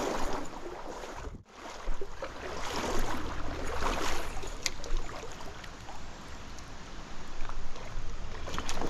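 Trout-stream water rushing and splashing close to the microphone, swelling and easing unevenly, with a brief cut-out about a second and a half in.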